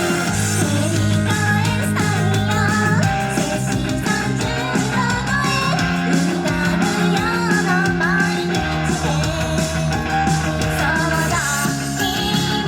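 Idol-pop band track with electric guitar, bass and drums and a sung melody over it, played loud on the live PA.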